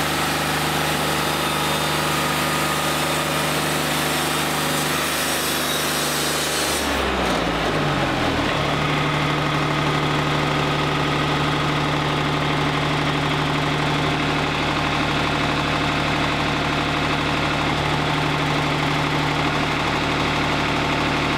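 Wood-Mizer LT40 Wide hydraulic portable sawmill running at full throttle with a bright hiss. About seven seconds in, the engine slows down and then idles steadily.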